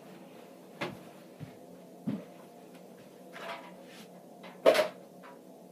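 Scattered thumps and knocks of a stuffed toy being slammed around and a clear plastic container being handled: three dull thumps in the first two seconds, a rustle, then one sharp, loud knock near the end.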